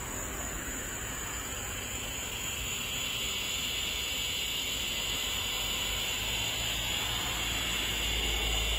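Steady insect drone with a high-pitched hum over a hiss, growing slightly louder near the end.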